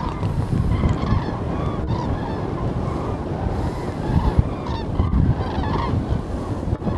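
A flock of common cranes calling in flight, many loud, overlapping rolling calls repeating throughout, over a low rumble of wind on the microphone.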